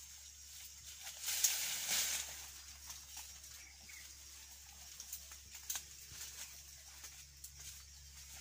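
Rustling and crackling in dry leaves and brush, with scattered small snaps of twigs and one louder rustle about a second in.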